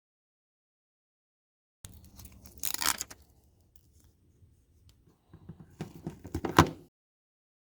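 Two short bursts of rustling and scraping handling noise with sharp clicks, about two seconds in and again around six seconds in, the loudest click near the end of the second burst.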